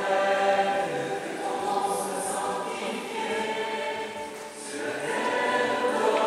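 A group of voices singing a French religious song together, the melody moving continuously through held notes.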